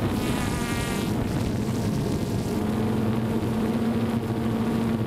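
Multicopter's electric motors and propellers whirring in flight, picked up by its onboard camera: a higher whine in the first second or so, then a steady hum.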